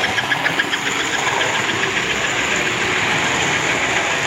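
Model train running along its track with a steady rolling rumble of motor and wheels. A rapid, even clicking is heard during the first couple of seconds.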